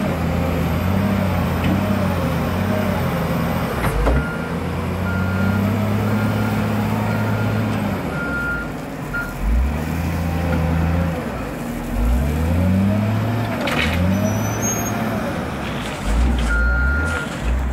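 Diesel engine of a Caterpillar 966H wheel loader, revving up and easing off over and over as it works. A reversing alarm beeps steadily for a few seconds in the first half and again near the end, and there is a short hiss of air about three-quarters through.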